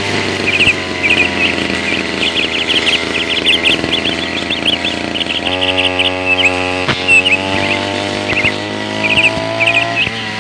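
Brush cutter engine running, its pitch drifting up and down with the throttle and shifting abruptly about halfway through. Birds chirp steadily over it.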